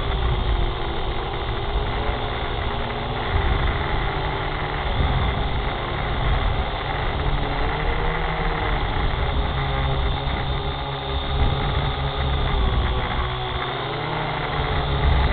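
Small camera drone's motors and propellers humming steadily, the pitch wavering up and down as it flies low and descends.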